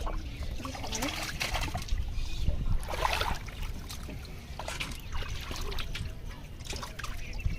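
River water splashing and trickling in irregular bursts, loudest about three seconds in, with voices underneath.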